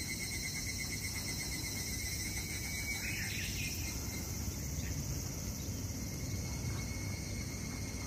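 Chorus of singing insects: several steady, shrill, continuous trills at different pitches layered together, over a low background rumble, with one brief chirp about three seconds in.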